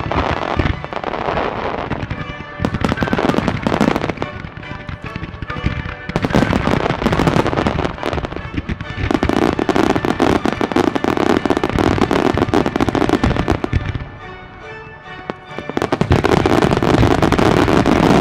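Starmine fireworks barrage: many shells bursting in quick succession with crackling, over music from loudspeakers. The bursts ease off briefly about three-quarters of the way through, then come back in the loudest, densest volley near the end.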